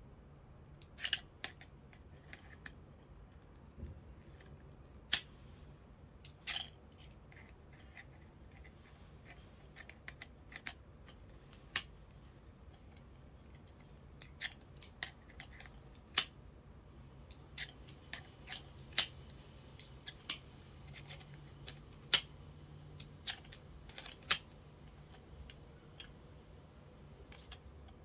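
Irregular sharp clicks and taps of small metal and plastic camera-mount parts being handled: a phone clamp and quick-release plate being fitted and turned on a tripod ball head. About twenty clicks, scattered unevenly, a few louder snaps among them.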